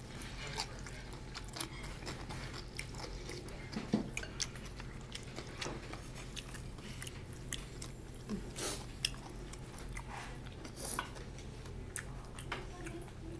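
Close-up eating sounds of two people eating black bean noodles: irregular wet smacks, chewing and a few longer noodle slurps. A steady low hum runs underneath.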